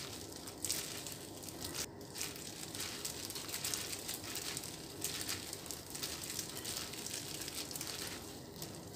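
Clear plastic food-prep glove crinkling as a gloved hand tosses and squeezes sauce-coated glass noodles on a plate: faint, irregular crinkles and rustles.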